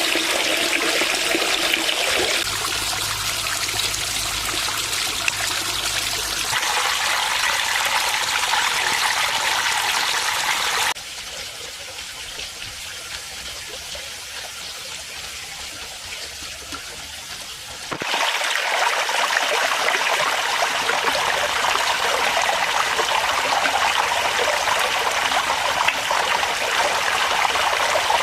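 Water splashing and trickling steadily as it falls from a small stone waterfall into a pond. The sound jumps abruptly several times and is quieter for several seconds in the middle.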